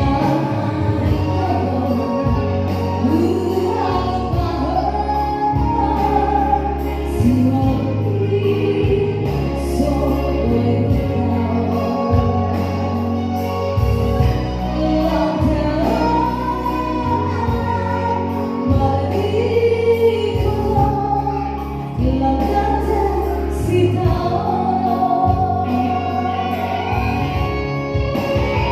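A slow gospel-style song: a voice sings a melody over accompaniment with held bass notes that change every couple of seconds.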